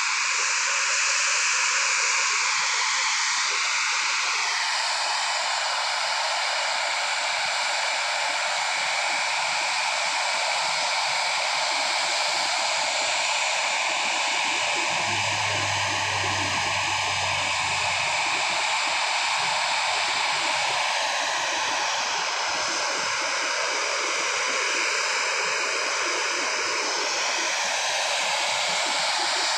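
Boeing 737's twin jet engines running at taxi power: a steady rush of jet noise with a high, slightly wavering whine.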